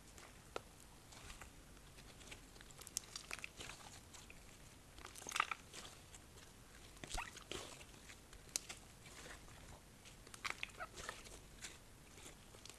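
Slime being squished and kneaded by hand, giving faint sticky clicks and crackling pops in small clusters a second or two apart.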